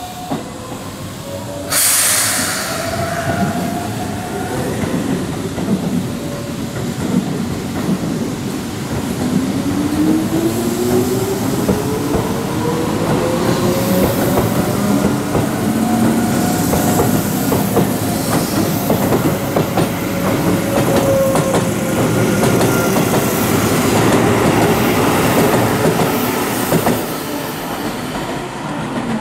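Keihan 6000-series electric train pulling out: a sudden hiss of air about two seconds in, then the motor whine rises slowly in pitch as the train accelerates, over steady wheel clatter and squeal on the rails. The sound drops off abruptly near the end.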